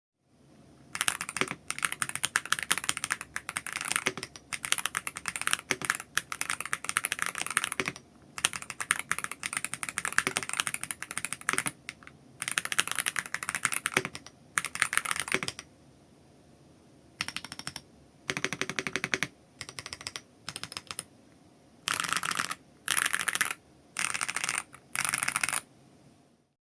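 Stock, unlubricated Kailh White Horse switches in an SC Bridge 75 HE keyboard, typed on in fast runs of keystrokes with brief pauses between them; after about sixteen seconds the runs become shorter.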